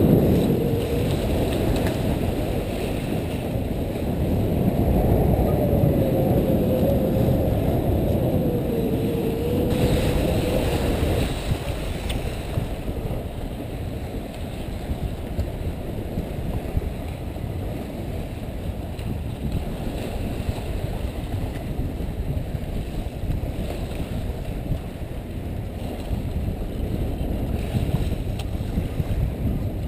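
Wind buffeting a bowsprit-mounted GoPro and water rushing past as the sailing yacht moves through the sea, a dense low rumble. A faint wavering tone rides on it for about the first ten seconds, and the noise drops a little after that.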